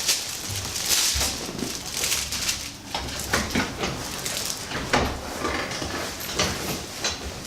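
Rustling and shuffling, with a few knocks and creaks, as a patient rolls over from face down onto his back on a padded chiropractic treatment table. The loudest knock comes about five seconds in.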